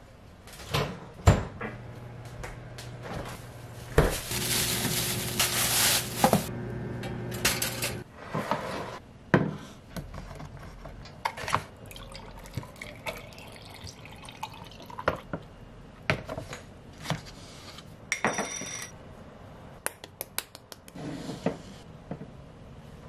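Kitchen handling sounds: a bowl set down with a knock, then a microwave oven humming steadily for several seconds until it cuts off sharply. After that, liquid coffee is poured from a pouch over ice cubes in a glass, with scattered clinks of ice, glass and dishes.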